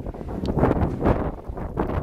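Strong wind buffeting the microphone in uneven gusts, a rumbling rush that swells and falls.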